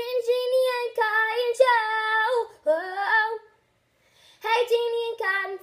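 A girl singing a short unaccompanied tune in long held notes, breaking off for about a second partway through before singing on.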